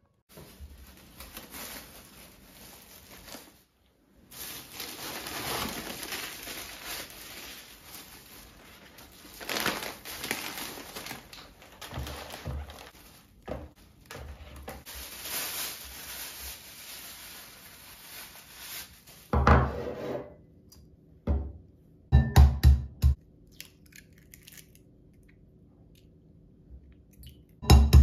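Plastic shopping bag rustling and crinkling as groceries are lifted out, with soft thuds of items set down. Later come a few sharp knocks of an egg being cracked against a glass bowl, the loudest near the end.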